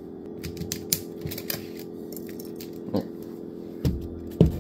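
Scattered clicks and knocks as a spool of 3D-printer filament is handled and turned, the loudest near the end, over a steady low hum.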